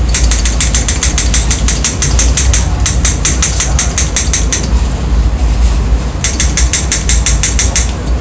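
Hand-held ticket hole punch clicking rapidly, about five or six snips a second, as it punches a picture out of holes in a paper ticket. It stops for about a second and a half midway, then carries on. The train's low rumble runs underneath.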